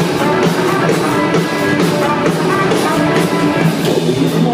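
Live rock band playing loud through a club PA: electric guitars over a steady drum beat, without vocals in this stretch.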